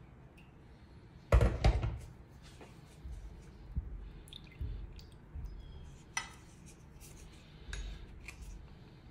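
A metal can clatters against a ceramic bowl about a second in, the loudest sound, as wet cat food and its liquid are tipped into the bowl. Softer knocks and scrapes follow as a plastic spoon taps and works the wet food in the bowl.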